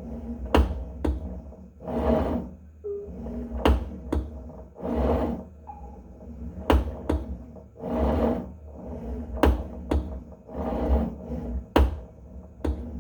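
Tonal home gym cable being pulled out and let back in over and over: each cycle a short swelling whir, then a pair of sharp clicks or pops about every three seconds, over a steady low hum. The popping on retraction is the fault the owner is showing, which Tonal's support fixes by resetting the cable system.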